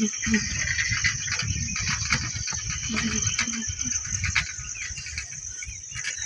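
Insects in the fields chirring in a steady high-pitched drone, over a low rumble and knocks from riding a bicycle along a paved lane.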